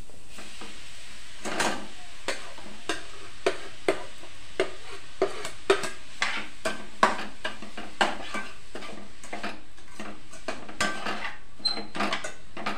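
Grated coconut being stirred and fried in a little ghee in a steel kadai. A spatula scrapes and knocks against the pan irregularly, about once or twice a second, over a faint sizzle.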